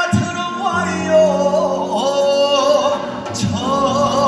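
A male pansori singer singing long, wavering held notes into a microphone, over instrumental accompaniment that sustains low notes.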